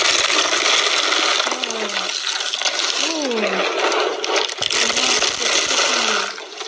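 Hands crushing and crumbling dry curled shavings, a dense continuous crackling and crunching as the curls snap and break apart.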